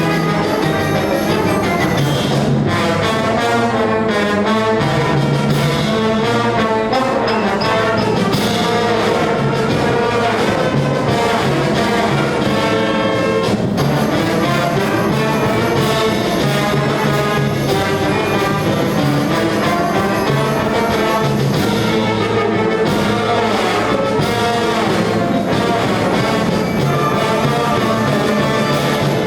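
High school instrumental ensemble playing live, the brass section prominent over the full band, steady and without a break.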